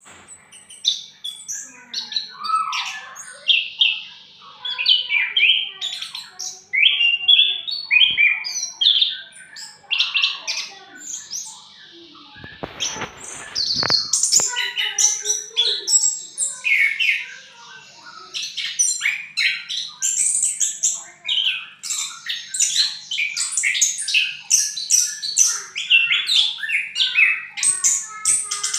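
Orange-headed thrush singing without a break: a dense run of quick, high chirps and twittering phrases. A brief noisy rustle cuts in about halfway through.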